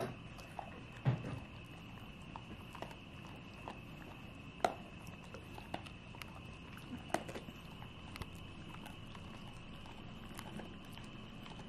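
A Shar Pei puppy chewing a treat: irregular wet clicks and smacks of its mouth, with a few louder ones spread through, over a faint steady high hiss.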